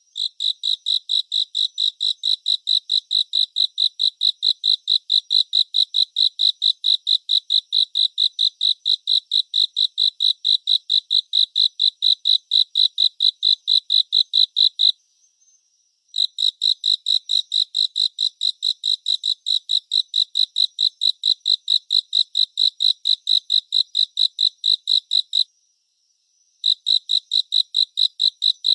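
A cricket chirping in a fast, even rhythm of about four to five high-pitched pulses a second, stopping briefly twice, about halfway and near the end, over a faint steady higher trill.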